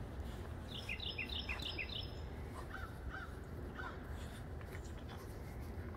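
Bird calls over a steady low rumble: a quick run of five high, falling notes about a second in, then a few shorter, lower notes.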